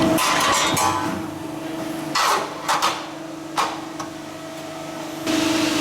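Hydraulic press brake running with a steady hum that drops out about a second in, followed by a few sharp metallic clanks as the steel sheet is handled, and the hum coming back near the end.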